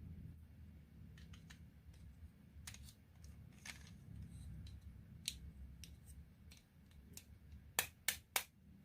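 Marbles clicking and knocking against a wooden HABA marble run, light irregular clicks with three sharper, louder clicks in quick succession near the end.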